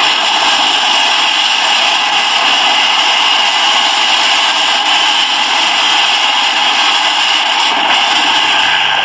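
Super Puma helicopter's twin turboshaft engines and rotor running steadily: a high turbine whine over a constant rush.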